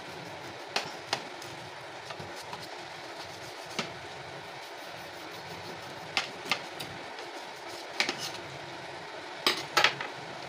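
Kitchen knife cutting through a baked loaf on a ceramic plate: scattered sharp clicks of the blade knocking against the plate, the loudest pair near the end, over a steady low hiss.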